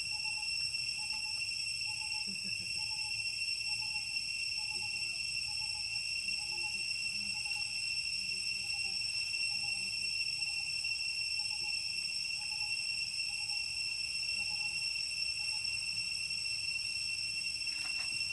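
Steady, unbroken high-pitched insect drone from cicadas or crickets, with a soft short lower note repeating about twice a second under it.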